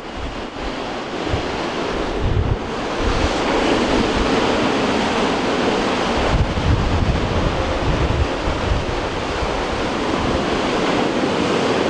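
Wind-driven sea waves breaking and washing up a sandy beach, growing louder a few seconds in, with gusts of wind buffeting the microphone.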